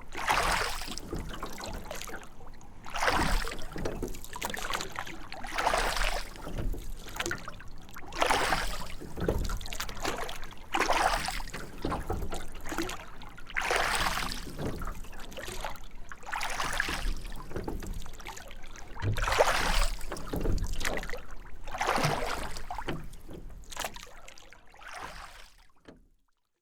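Rowing boat being rowed on a lake: oars dipping and pulling through the water in a steady rhythm, about one stroke every two and a half to three seconds, each stroke a swell of splashing and swishing. The strokes fade out near the end.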